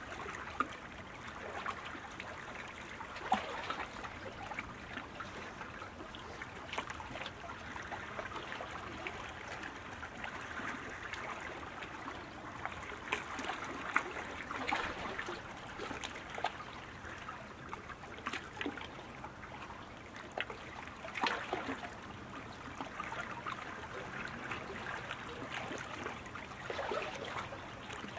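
Small waves lapping and trickling against racing canoe hulls and start-line floats: a steady watery wash, with a few brief louder moments.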